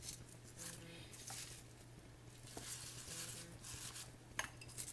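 Soft rustling and light handling noises as fresh basil leaves are put into a food processor bowl, with one sharp click near the end, over a low steady hum.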